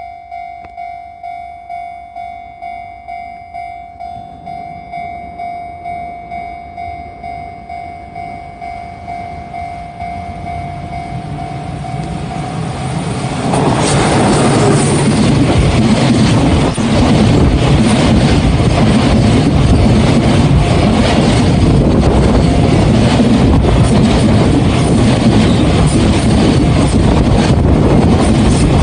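Level-crossing warning bell ringing with a steady repeating ding, about three strikes every two seconds, as a freight train approaches and grows louder. About thirteen seconds in, the EF66 electric locomotive and its freight wagons pass close by, and the loud, continuous rumble and clatter of wheels on rail drowns out the bell.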